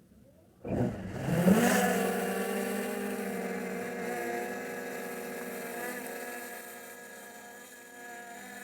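Quadcopter drone's motors spinning up for takeoff about a second in, the pitch rising quickly and then holding as a steady buzzing whine that slowly fades as the drone climbs away.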